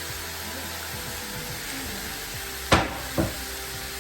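Chicken strips sizzling steadily on a hot, oiled cast iron grill pan, under background music. Two sharp knocks sound near the end, about half a second apart, the first the louder.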